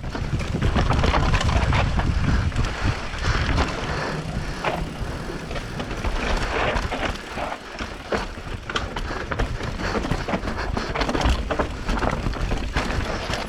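Mountain bike riding down a dirt trail: tyres rolling over rough ground, with many short rattles and knocks from the bike and a low rumble on the camera microphone, strongest in the first few seconds.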